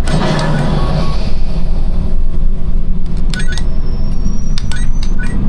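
Simulator ride cabin sound: a steady low rumble of the ship soundtrack and motion base, with a hissing whoosh in the first second and several sharp clicks in the second half.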